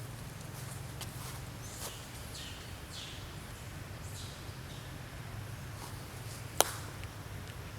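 Faint, high, short falling squeaks or chirps from an animal, several in the first half, over a steady low rumble, with one sharp click about two-thirds of the way through.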